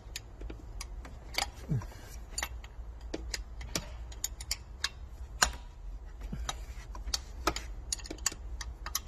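Metal hand tools clicking and tapping while a 12 mm intake manifold bracket bolt is loosened. The clicks are sharp and irregular, a few a second.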